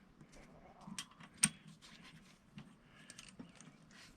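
Faint clicks and clinks of small metal suspension parts being handled. The two sharpest come about one and one and a half seconds in.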